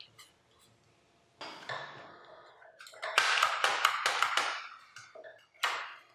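Handling noise from an airsoft rifle's plastic stock as it is lifted and turned over on the bench. A click at the start, then rustling, a loud cluster of scrapes and knocks about three seconds in, and one more knock near the end.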